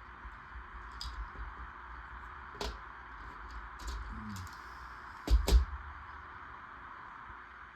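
Plastic LEGO Technic pieces being handled and pressed together: scattered light clicks, with two louder clicks in quick succession about five seconds in, over a steady hiss.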